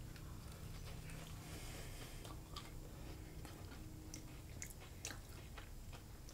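Faint chewing of a bite of soft, moist coffee cake, with a few small sharp mouth clicks scattered through it.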